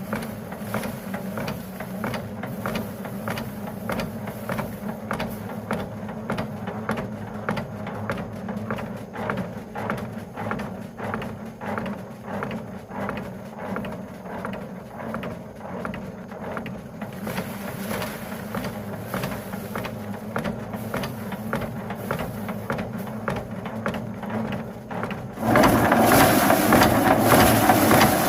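A motor running with a steady low hum and a quick, regular clatter of a few knocks a second. About 25 seconds in, a much louder machine noise starts abruptly.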